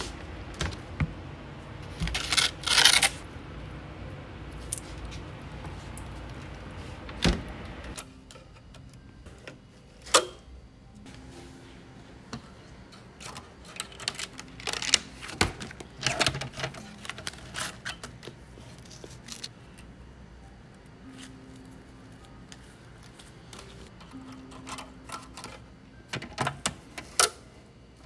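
Knocks and rattles at an open refrigerator, loudest two to three seconds in. From about eight seconds in: a run of light clicks and paper rustles as punched sheets are hooked onto the rings of a plastic binding comb held open on a comb binding machine.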